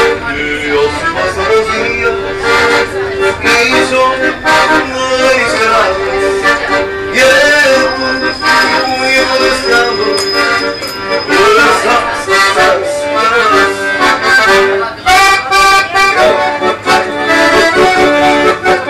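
Piano accordion played live: a melody of quickly changing notes over long held chords.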